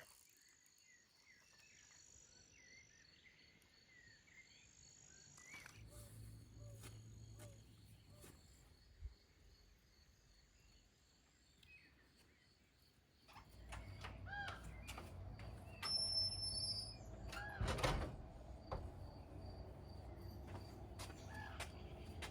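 Quiet outdoor ambience: small birds chirping and a steady high insect-like trill. From about halfway a low rumble sets in, with a few knocks, the loudest near the end.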